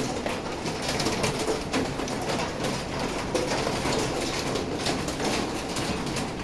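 Heavy rain mixed with hail: a steady rushing hiss with many irregular sharp taps of hailstones striking and bouncing off hard surfaces.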